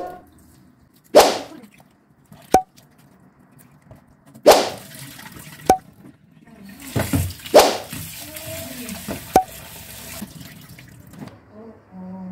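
Several sharp knocks and clinks, a few of them ringing briefly like crockery or metal, with water running from a tap for about three seconds near the middle.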